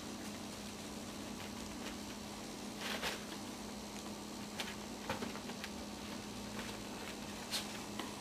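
Maltese puppies at play, their paws and claws making scattered light taps and a short scuffle about three seconds in, over a steady low hum.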